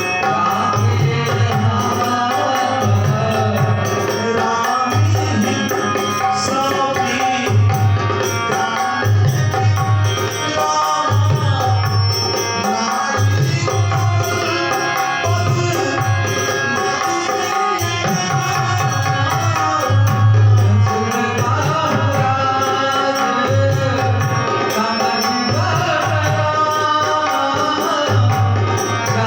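Dholak played in a steady rhythmic pattern, deep bass strokes under sharp treble strokes, accompanying devotional music with a sustained melodic line.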